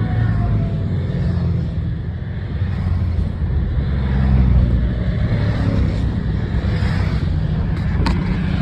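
A column of motorcycles riding past close by one after another, their engines running steadily, with the loudest pass about four seconds in.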